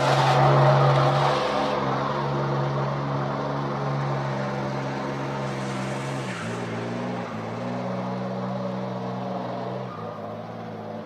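Truck engine running under load as the truck drives through deep mud, with the tyres churning mud in the first couple of seconds. The engine note shifts about six seconds in and again near the end, and the sound fades as the truck pulls away.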